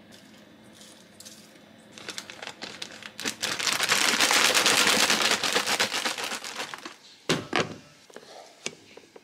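Zip-top plastic bag of cut cabbage being shaken, the plastic crinkling loudly for a few seconds as the leaves toss in the seasoning; a single sharp thump near the end.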